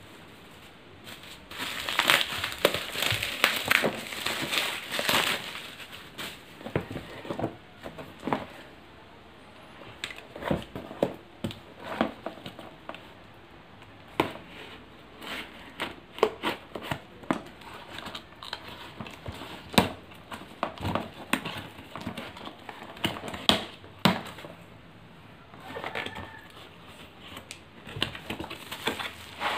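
Plastic bubble wrap crinkling and rustling as it is pulled off a package, densest for a few seconds about two seconds in. Then scattered sharp clicks and snips as scissors cut the packing tape on a cardboard box, with cardboard and plastic rustling again near the end as the box is opened.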